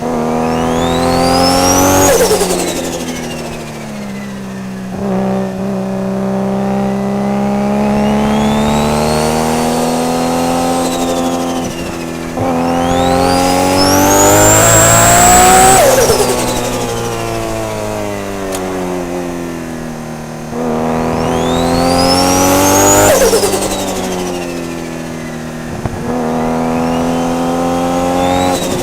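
Turbocharged straight-six of a tuned Nissan R32 GT-R revving up hard three times, with a high turbo whistle climbing with each pull and fading slowly after the throttle is lifted. Between pulls the engine holds a steady lower note.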